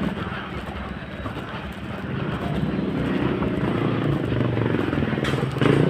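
Small motorcycle engine running and drawing nearer, growing louder from about two seconds in, with a couple of sharp clicks near the end.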